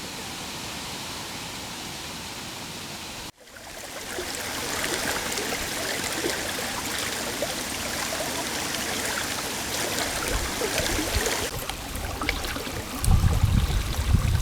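Steady rushing of running water, like a stream, cut off briefly about three and a half seconds in and resuming a little louder.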